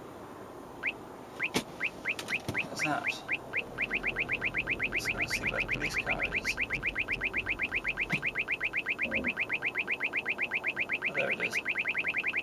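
Uniden R7 radar detector sounding its Ka-band alert: short rising chirps that come a few at a time at first, then speed up to a rapid steady run of about eight a second, the rate climbing as the detected Ka signal grows stronger.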